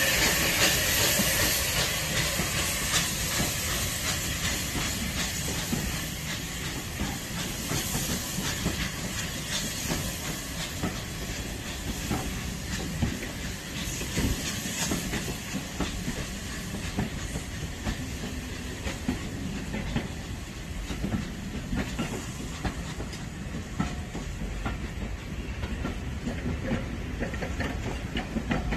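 A steam-hauled train of passenger coaches rolling past, its wheels clicking over the rail joints with a steady rumble. A loud hiss of steam from the unrebuilt Bulleid Pacific locomotive that has just passed fades away over the first couple of seconds.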